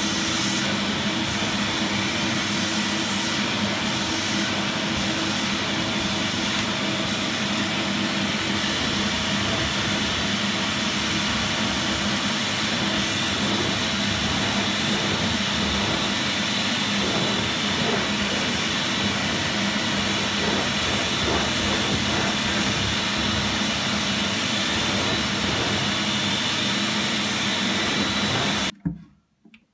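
A 2001 Zelmer Wodnik 5 Profi System (619.5.B51E) washing vacuum cleaner runs steadily while its carpet-washing nozzle is drawn over a rug. It makes a steady motor hum with a hiss of suction, and the sound cuts off suddenly near the end.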